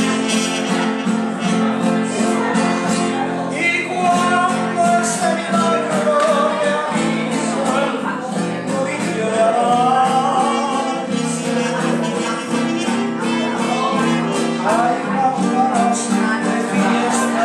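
Live Latin American music: a nylon-string classical guitar strummed, with a trumpet playing the melody and a man singing.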